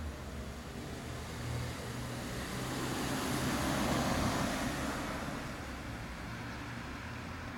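Outdoor background noise over a steady low hum: a broad rush swells to a peak about four seconds in, then fades away.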